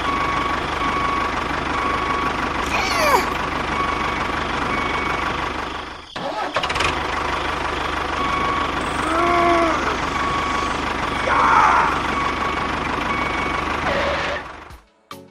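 Steady machine running noise from a miniature construction vehicle, with a short high beep repeating about twice a second; it breaks off briefly about six seconds in and cuts out near the end.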